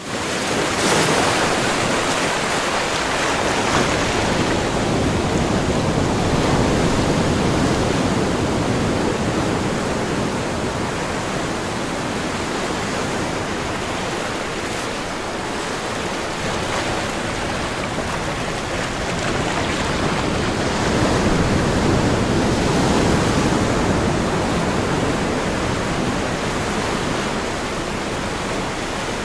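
Water rushing in a steady, full noise that swells gently now and then, like heavy surf or a waterfall, starting just after a brief break in the sound.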